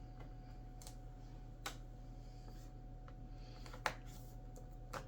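A few faint, sharp clicks and taps as tiny laptop screws and a small screwdriver are handled, over a steady low hum.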